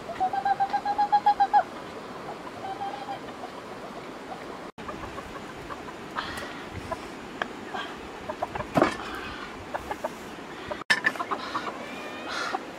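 A domestic hen giving a rapid run of clucks at a steady pitch for about a second and a half, with a fainter run around three seconds in. Later come scattered knocks and taps, the loudest a sharp one a few seconds before the end.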